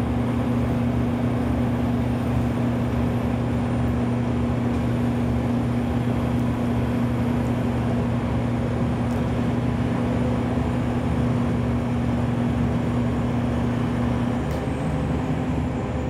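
Horizontal directional drilling rig running under power, its diesel engine and hydraulics making a steady low drone while the drill carriage travels along the rack. The pitch shifts slightly near the end.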